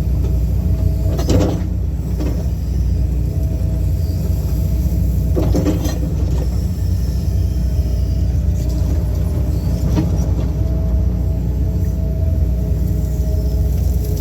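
John Deere excavator's diesel engine running steadily while digging, with a faint steady whine over the low rumble. There are three short clunks about one, five and a half, and ten seconds in.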